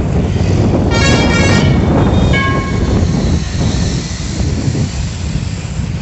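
Street traffic heard from a moving vehicle, with a steady low rumble throughout. A vehicle horn honks about a second in for about half a second, and a second, shorter horn toots about a second later.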